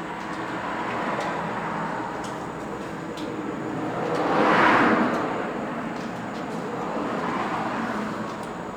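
Vehicles passing one after another, the sound swelling and fading, with the loudest pass about halfway through.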